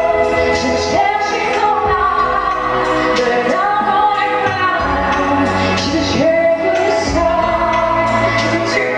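A woman singing a pop song with band accompaniment, holding several long notes.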